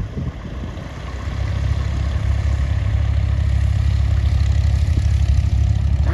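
A light aircraft's engine running as the plane comes in: a low drone that grows louder over the first few seconds, then holds steady.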